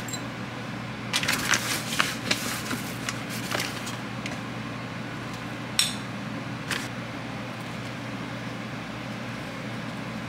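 Hands working potting soil into a plant pot around a cutting's roots: scattered scrapes and light clicks, a cluster about a second in and a few single ones later, over a steady low room hum.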